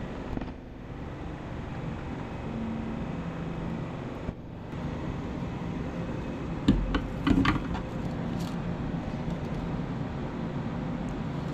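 Steady hum of a running 3D printer's fans and stepper motors as its toolhead is moved through its range of motion, with a few sharp handling knocks and clicks about seven seconds in as filament is fed into the printer.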